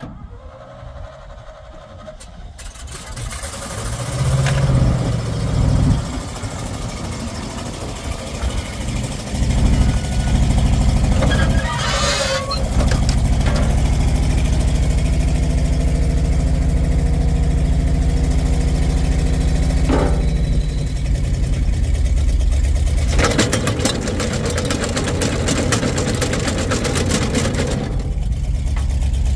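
GMC feed truck's engine starting and settling into a steady run. About three-quarters of the way through, a louder rattling mechanical clatter joins in, from the Oswalt mixer box's drive and discharge conveyor being run.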